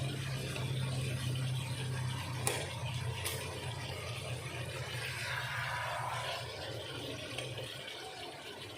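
Kitchen sounds: a steady low hum with a light hiss that fades near the end, and two sharp clicks of kitchenware a few seconds in.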